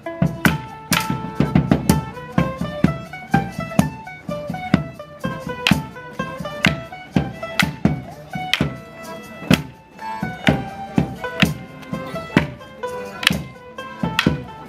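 Morris dance tune played on squeezebox and fiddle, with sharp clacks of the dancers' wooden sticks struck together in time with the music.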